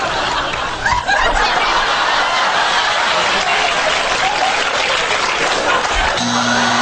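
Studio audience laughing and applauding. A low steady buzz comes in near the end.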